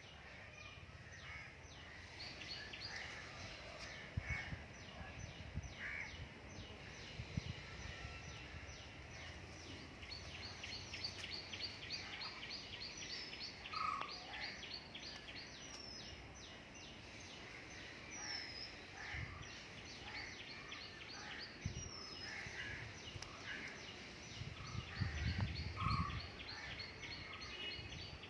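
Several wild birds calling over a steady outdoor background hiss: rapid runs of short high chirps, scattered lower calls, and a few brief whistled notes in the middle. A few low rumbles come through, the strongest near the end.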